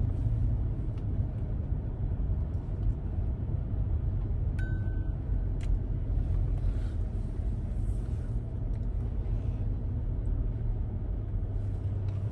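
Car running slowly with a steady low rumble, and one short beep about four and a half seconds in.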